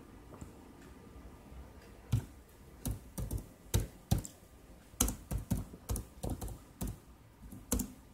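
A run of about a dozen sharp, irregular clicks and taps, starting about two seconds in, like keys being typed or fingers tapping.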